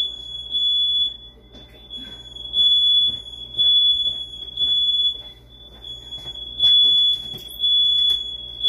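House alarm sounding: a loud, high-pitched electronic beep repeating in pulses of about half a second, with a longer pause after every few pulses. Faint knocks and clicks sound underneath.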